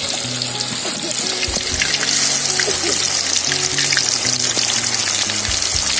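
Marinated country chicken pieces frying in hot coconut oil in a kadai, a steady dense sizzle and crackle, with background music underneath.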